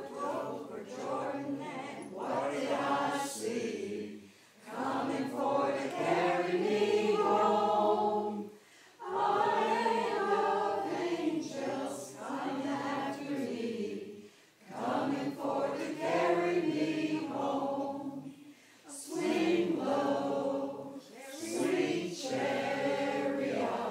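A small choir of mixed voices singing together unaccompanied, in sustained phrases with short breaks for breath between them.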